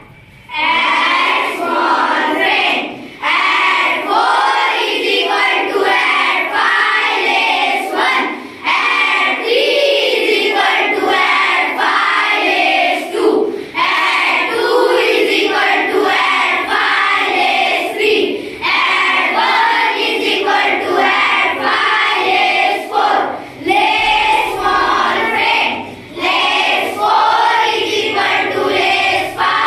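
A group of children chanting abacus formulas in unison, in a sing-song recitation, with short pauses between phrases.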